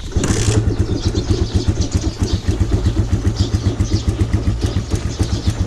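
Suzuki Raider 150's carbureted single-cylinder engine started cold with one press of the electric starter: a short burst as it fires, then it settles into an even, fast-pulsing idle. The carb is still at its unadjusted setting, with the engine cold.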